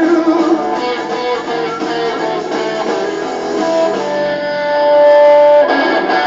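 Rock music led by electric guitar, with one note held for over a second before a fuller chord comes in near the end.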